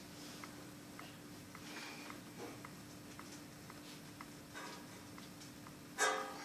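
Faint, regular ticking about twice a second over a steady low hum, with a short louder sound near the end.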